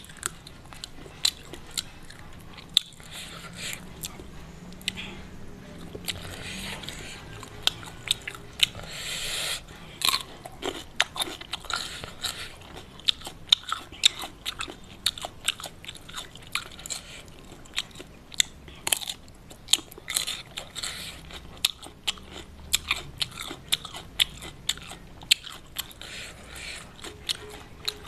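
A person biting into and chewing raw cucumber close to the microphone: crisp crunching bites and wet chewing clicks, coming thicker from about ten seconds in.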